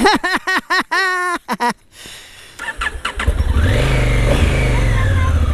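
Honda Africa Twin's parallel-twin engine starting up about three seconds in and settling into a steady idle.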